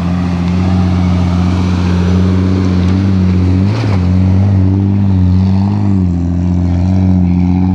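Jeep Grand Cherokee engine pulling under load as the SUV climbs a steep dirt slope, held at fairly steady revs with a brief jump in pitch about four seconds in.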